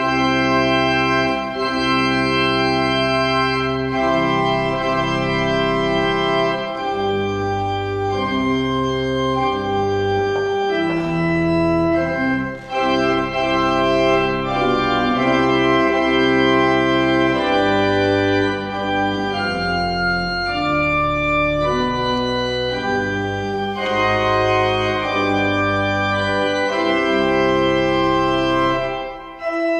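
Church organ playing the postlude that closes the Mass, in full sustained chords that change every second or two.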